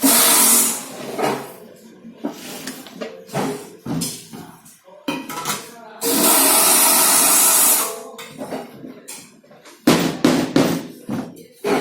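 Factory work sounds: loud bursts of hissing air, one at the start and a longer one of about two seconds in the middle, with metal knocks and clanks between them.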